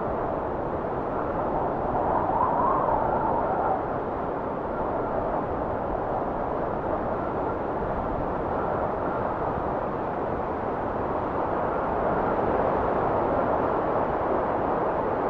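Wind blowing steadily, swelling a couple of seconds in with a faint whistle, then easing, and rising again near the end.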